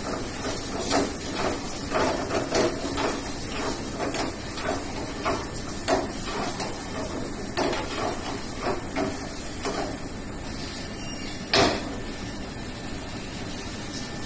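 Metal ladle knocking and scraping against a pan while food is stirred on a gas burner, in irregular clicks over a steady hiss. One louder knock comes near the end.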